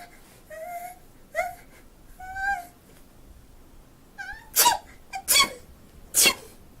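A woman's high-pitched, whimpering "ah… ahh" build-up breaths, several short catches, then three loud sneezes in quick succession near the end.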